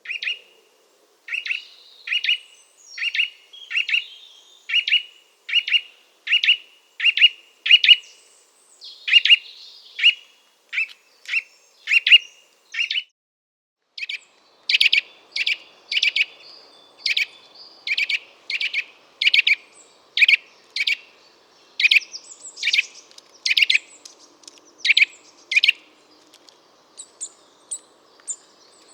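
Eurasian nuthatch singing a slow series of loud repeated 'wuit' notes, about one to two a second. The series pauses about halfway through, then resumes louder.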